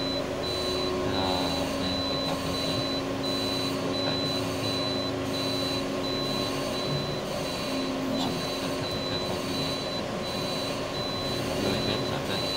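Car running at low speed, heard from inside the cabin as a steady hum, with a high-pitched beep repeating at an even pace throughout.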